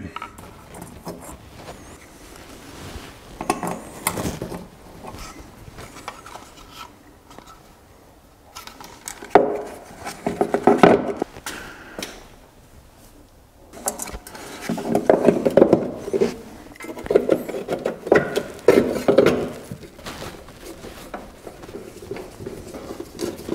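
Clicks, taps and clatter of plastic and metal tail-light parts being handled and fitted into a car's tail-light housing, coming in several bursts with quieter handling between.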